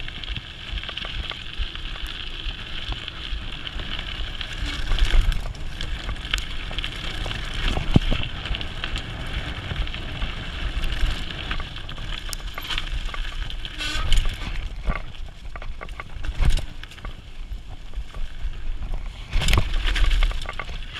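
Mountain bike riding fast down a dirt forest trail: a steady rush of tyres on dirt with wind rumble, broken by several sharp knocks and rattles of the bike over bumps, the loudest near the end.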